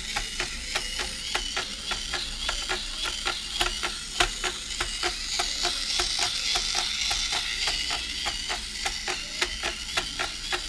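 Hexbug Spider robot toy walking on a tabletop: its small gear motor and plastic legs make an even, fast ticking of about four clicks a second, with a higher motor whir that swells in the middle.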